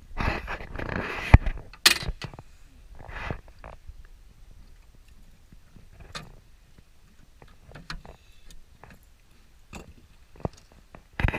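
A caught fish being handled at the side of a fishing boat: a rush of noise for about a second and a half with two sharp knocks, then scattered light taps and clicks, and another sharp knock near the end.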